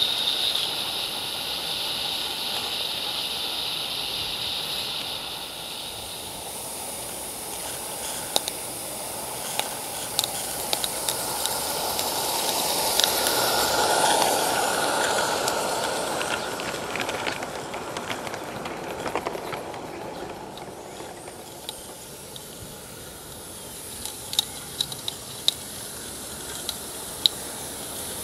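Two live-steam G scale locomotives hissing steam as they haul a goods train. The hiss swells to its loudest about halfway through as the train passes close, then fades. Scattered sharp clicks come through it.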